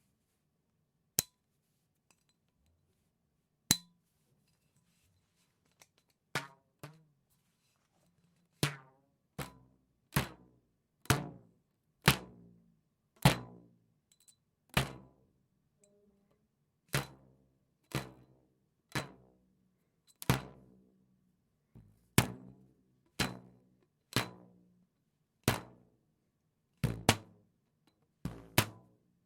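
Elastic band twanged again and again as a cartoon sound effect. A few sparse snaps come first, then roughly one twang a second, each a sharp snap with a short low ring that dies away.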